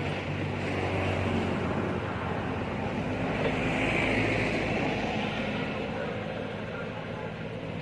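A motor vehicle going past on the road: a steady engine hum with tyre noise that swells about four seconds in and then eases off.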